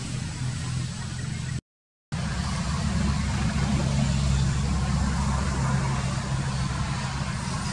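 Steady low engine hum of a motor running at an even pitch. It drops out completely for about half a second roughly two seconds in, then resumes a little louder.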